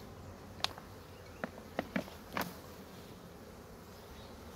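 Honeybees buzzing over an open hive's frames, a steady low hum. A handful of short sharp clicks come in the first two and a half seconds.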